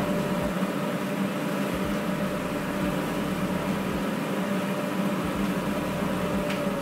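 JIB DC2000 dust collector running steadily with no load: its 0.75 kW motor and metal impeller give a quite quiet, even whir with a steady hum. A click comes near the end.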